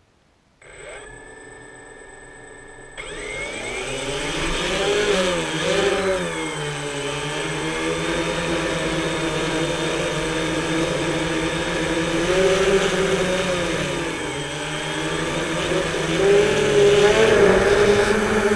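Quadcopter drone's electric motors and propellers: a quiet steady whine of several tones starts about half a second in, then jumps much louder about three seconds in as the drone lifts off and climbs. Its stacked whines waver in pitch as it manoeuvres, loudest near the end.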